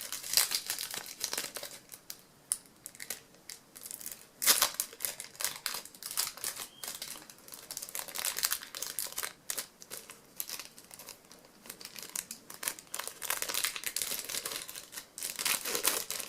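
Plastic trading-card wrappers being torn and crinkled open by hand: irregular crackling and ripping, with one sharper rip about four and a half seconds in. The packs are sealed tightly and take effort to open.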